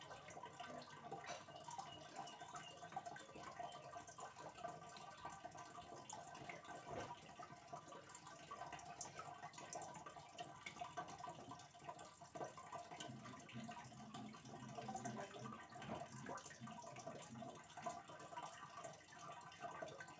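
Faint, steady trickling and dripping of aquarium water, with many small splashes.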